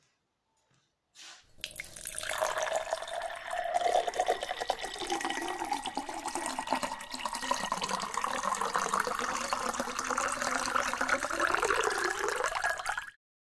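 A steady rushing, watery noise with wavering tones running through it. It starts about a second and a half in and cuts off abruptly near the end.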